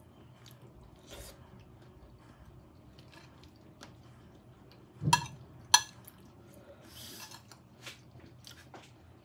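Quiet chewing of a soft custard dessert, with a metal spoon clinking twice against a ceramic plate a little over five seconds in and scraping briefly across it a couple of seconds later.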